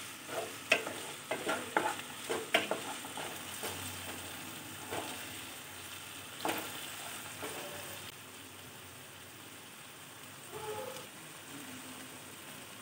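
Onions and tomatoes sizzling in hot oil in a nonstick pan while a spatula stirs and scrapes them. The strokes come thick and fast in the first few seconds, a couple more follow, and then a steady gentle sizzle is left as the tomatoes are sautéed until soft.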